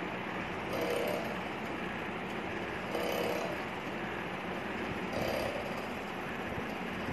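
Motor-driven pumping mechanism of a hydraulic bottle-jack bending machine running steadily, with a recurring mechanical stroke sound about every two seconds, three times, as the linkage pumps the jack.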